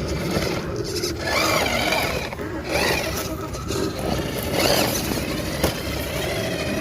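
Electric motor and gears of a scale RC crawler truck whining in short bursts of throttle, with scraping as it struggles on an obstacle. A single sharp click comes a little past the middle.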